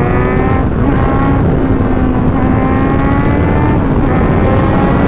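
Kawasaki Z900's inline-four engine pulling at road speed, its pitch climbing slowly with a couple of brief dips at gear changes, under heavy wind rush.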